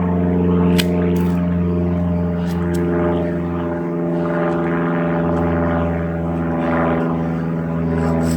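Steady engine drone with a low, even-pitched hum, broken by a few short clicks.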